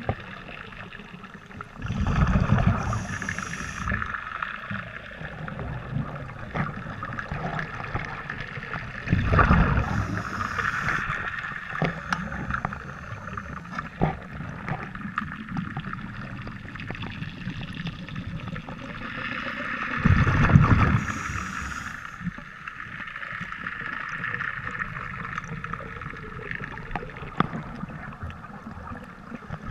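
Scuba diver's regulator breathing heard underwater: three rushes of exhaled bubbles about ten seconds apart, each with a hiss from the regulator, over a steady water noise.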